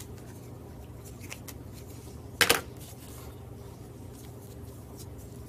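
Scissors trimming jute twine, a few faint snips and clicks over a steady low hum, with one louder knock about two and a half seconds in.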